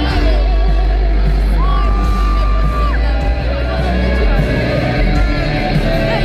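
Loud live concert music through the venue's PA, with heavy, booming bass and a crowd yelling along. About a second and a half in, one long high note is held for over a second.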